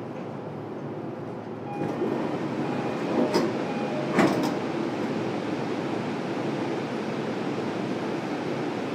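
Station and train noise heard through the open doors of a stopped E233-series train. About two seconds in the noise grows louder. A short run of repeated chime tones follows, then two sharp knocks about a second apart.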